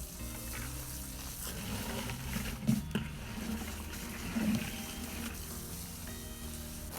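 Water running from a garden hose, with a couple of sharp knocks about three seconds in, over background music.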